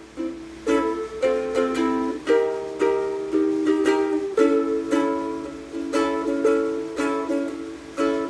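Tribo TR-07 Niño concert ukulele, all acacia wood, strummed unplugged. It plays a steady run of chords at about two strums a second, with no voice.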